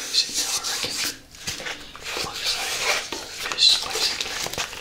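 Fingers tapping and scratching on a small zippered hard-shell carrying case and its mesh lid pocket, close to the microphone, in irregular crackly taps and rubs.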